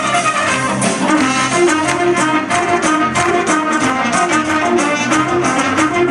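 Loud upbeat party music led by brass instruments over a steady, quick beat.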